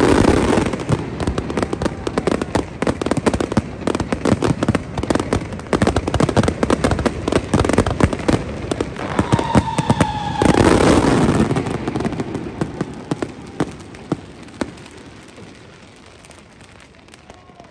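Fireworks display: rapid crackling and banging of aerial shells, with heavy bursts at the start and again about ten seconds in. After that the crackle thins to scattered pops and fades away over the last few seconds.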